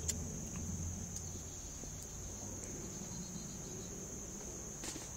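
Crickets chirping in one steady, unbroken high-pitched drone, over a low rumble that dies away in the first second. There is a faint click at the start and another near the end.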